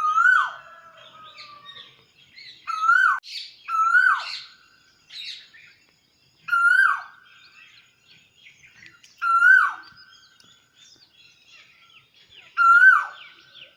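Birds calling in the morning. One bird repeats a short call about six times, every two to three seconds, each a held note that drops sharply at the end. Fainter, higher chirps from other birds fill the gaps.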